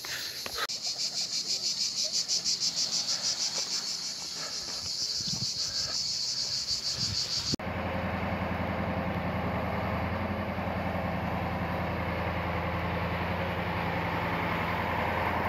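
Cicadas singing in a high, pulsing chorus, about four pulses a second. About halfway through this cuts off abruptly and a truck's engine is heard idling with a steady low hum.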